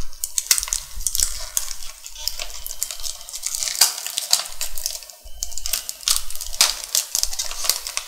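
Clear plastic packaging crinkling and crackling as it is handled and pulled open, a run of irregular sharp crackles.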